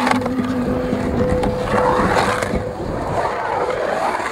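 Skateboard wheels rolling and carving on the smooth concrete of a skate bowl, a continuous rolling rumble that swells and eases with the turns, with a sharp click of the board at the start.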